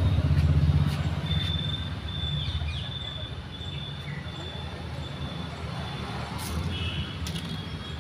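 A motor vehicle's low engine rumble, louder for the first second and then fading to a steadier background, with faint thin high-pitched tones and a few light clicks.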